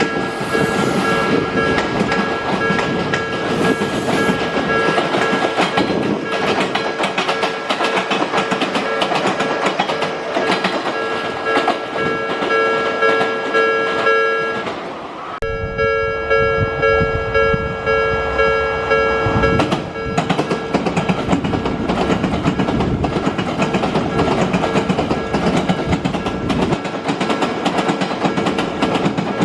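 Level-crossing alarm ringing steadily over the clatter of a 10-car Odakyu Romancecar EXE's wheels on rail joints. After a brief break about halfway, the alarm rings on as a 10-car Romancecar MSE passes through without stopping, its wheels clacking over the joints with a heavier rumble.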